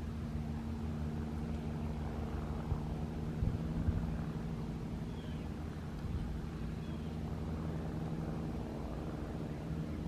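Steady low machine hum, with a few soft thumps a little past the middle.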